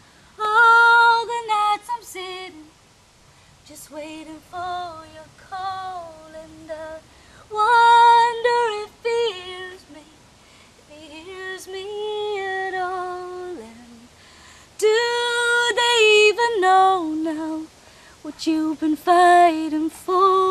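A woman singing a cappella, in phrases of long held and gliding notes with short pauses between them.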